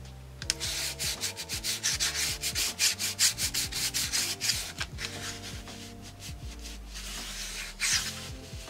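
Hand rubbing briskly over the back of a sheet of paper laid on an inked lino block, burnishing the print by hand. The rubbing strokes come several a second, ease off after about five seconds, and return in a short burst near the end.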